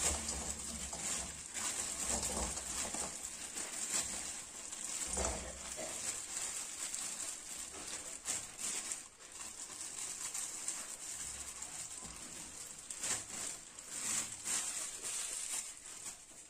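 Plastic bag crinkling and rustling as crushed jaggery is shaken out of it into a metal kadhai, with small knocks of the lumps dropping into the pan. The rustling stops near the end.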